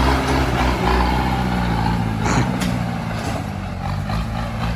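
Heavy machinery's diesel engine running steadily, with a short hiss about halfway through.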